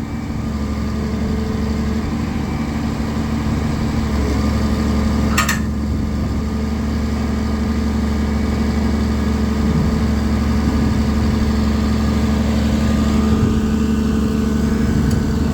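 Caterpillar 336D2 excavator's diesel engine running steadily at an even pitch as the machine is driven slowly down off a trailer. A single brief, sharp, high-pitched click or squeak comes about five seconds in.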